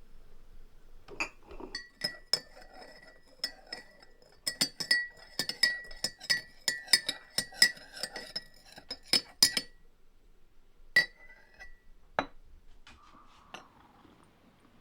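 Dishware clinking repeatedly, each strike ringing briefly at the same pitch, about two strikes a second for several seconds, then two single clinks near the end.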